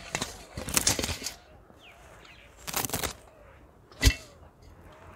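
Carrot tops being cut by hand and tossed into a steel bowl: bursts of leafy rustling and swishing, then a single sharp knock about four seconds in.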